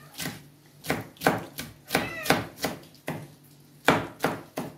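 Kitchen knife chopping green peppers on a plastic cutting board: a run of sharp, irregular knocks of the blade, about two to three a second.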